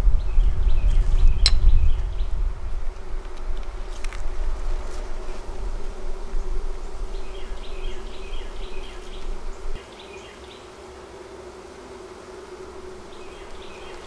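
Honeybees humming steadily over an open hive while a brood frame is lifted out. A low rumble fills the first two seconds, and a couple of sharp clicks come as the frames are pried with a hive tool.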